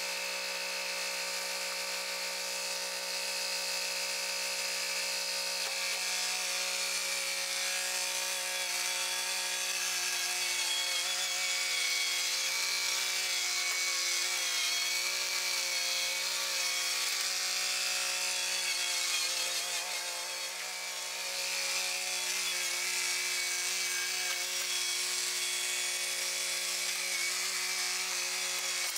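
Kubota compact tractor's diesel engine running steadily while its backhoe works, the pitch wavering slightly midway.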